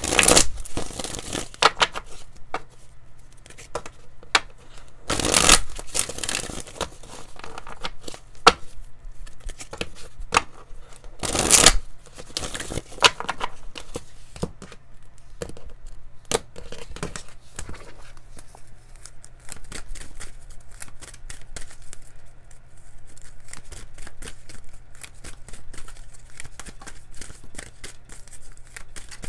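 A deck of oracle cards being shuffled by hand: a steady patter of cards sliding and clicking against each other. There are louder rustles at the start, about five seconds in and about eleven seconds in.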